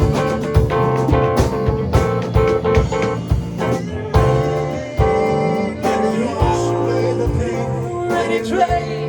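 Instrumental section of a song: band music with guitar and drum kit playing a steady beat.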